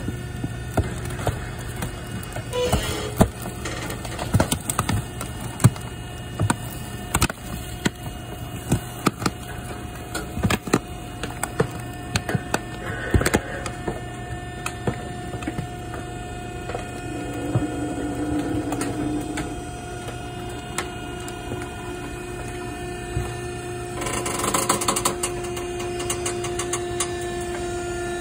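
Vertical cardboard baler running through a cycle: a steady hydraulic motor hum with irregular clicks and knocks, and a louder rush of noise near the end.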